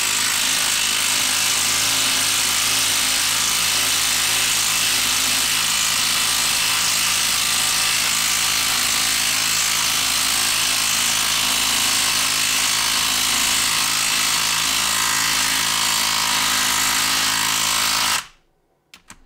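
HART 20V cordless impact driver hammering steadily as it drives a 4-inch, 1/2-inch lag screw into wood. About a second before the end it stops briefly, then starts hammering again.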